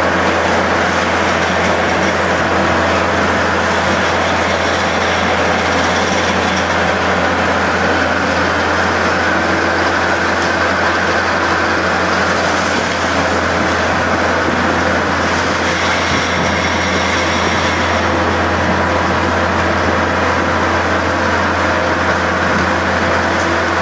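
Art's Way Top-Spread bale spreader running on a loader, its rotor shredding a bale and throwing straw while the loader's engine runs under load: a loud, steady mechanical din with a constant hum.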